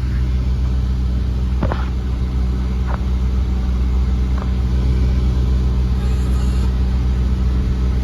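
2015 Kia Soul's 1.6-litre four-cylinder engine idling with a steady low hum. A few faint clicks sound over it.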